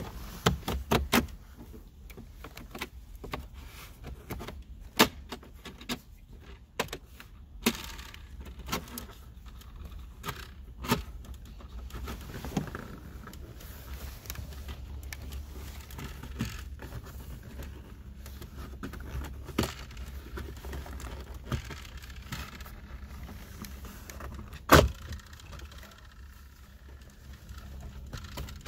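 Plastic dashboard trim and its retaining clips clicking and snapping as an orange plastic pry tool levers the BMW F30's dash trim loose, with tool and hands tapping on the trim. A scattered series of sharp clicks, the loudest about three-quarters of the way through, over a steady low hum.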